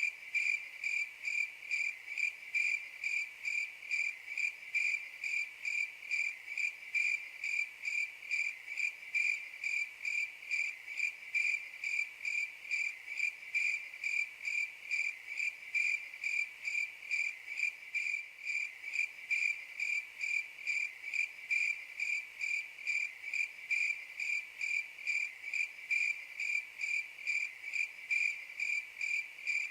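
Crickets chirping in a steady, even rhythm of about three chirps a second at one high pitch. This is the 'crickets' silence sound effect used to mark an awkward silence.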